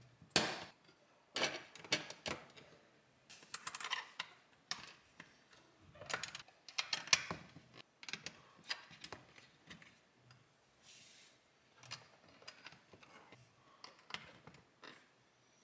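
LEGO plastic plates and bricks being handled and pressed together: a run of sharp clicks and taps in bunches, with a short rustle of pieces sliding about eleven seconds in.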